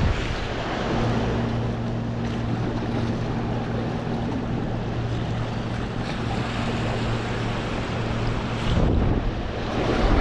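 Wind buffeting the microphone over the wash of surf, with a steady low engine drone that comes in about a second in and stops near the end.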